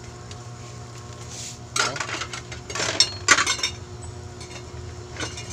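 Metal kitchenware clinking and clattering against a cooking pot, in a few short bursts around two and three seconds in, over a steady low hum.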